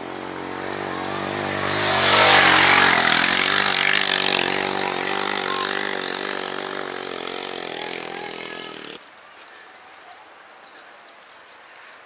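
A motor vehicle's engine running as it passes close by. It grows to its loudest about two seconds in, fades away, and cuts off abruptly about nine seconds in.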